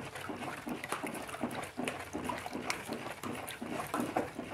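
Long plastic stick stirring a liquid soap mixture of lye, tallow, oil and alcohol in a plastic bucket: a rhythmic sloshing and swishing, about two to three strokes a second, as the batch is stirred to saponify.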